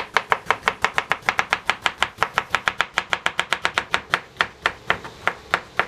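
Kitchen knife slicing bitter gourds finely on a wooden cutting board, the blade knocking on the board in a quick, even rhythm of about seven strokes a second.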